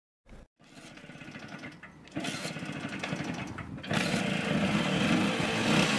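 Small scooter engine running, with a brief burst about a third of a second in, then growing louder in two steps, about two and four seconds in.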